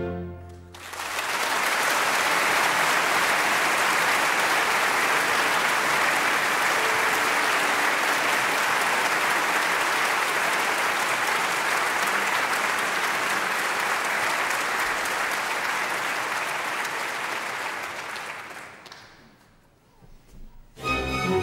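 Theatre audience applauding after an opera number. The applause starts about a second in, holds steady, then dies away near the end.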